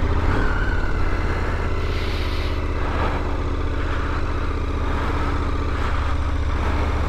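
KTM 1290 Super Adventure's V-twin engine running at low, steady revs, its note even throughout.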